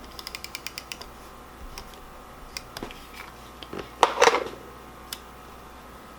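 A quick run of small sharp clicks, about ten in a second, then scattered taps and a brief louder rustle about four seconds in: hands working with pens and paper on a desk.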